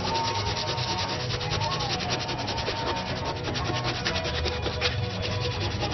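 Sanding on a primed auto body panel: a continuous, even rasping made of fast, regular strokes, about ten a second.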